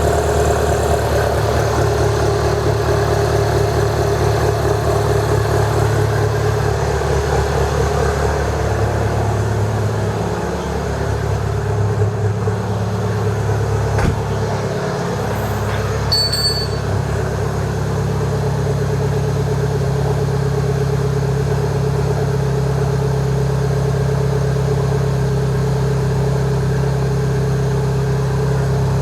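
Mini Cooper S turbocharged four-cylinder engine at a steady idle with no downpipe fitted, so the exhaust runs open. A sharp click about halfway through.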